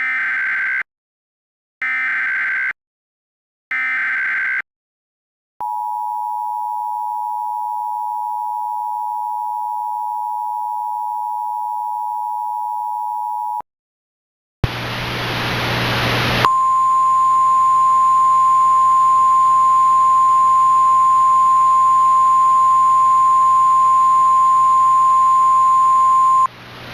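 Emergency Alert System header: three short bursts of warbling digital data tones about a second apart, then the EAS two-tone attention signal held steady for about eight seconds. After a brief gap a hissing, humming radio channel fades in, and a single steady alert tone sounds over the static for about ten seconds before cutting off.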